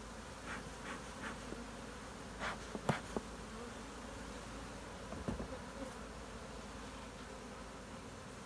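Honey bees buzzing steadily over an open hive, a colony stirred up by frame-shaking and smoke. A few short taps or knocks sound about two and a half to three seconds in and again around five seconds.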